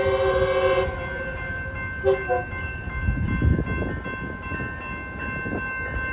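Metrolink train horn blowing for a grade crossing: a long blast that ends about a second in, then a short blast about two seconds in, part of the long-long-short-long crossing signal. After that comes the rising rumble of the approaching train, under the crossing's warning bell ringing steadily.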